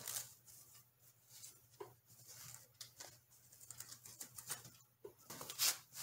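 Microfiber cloths being handled and smoothed out by hand on a rubber work mat: faint, scattered rustles and soft taps, with a louder rustle about five and a half seconds in.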